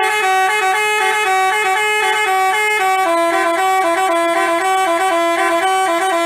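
Basuri telolet bus horn, a multi-tone horn playing a quick tune of alternating notes, shifting to a lower pair of notes about three seconds in.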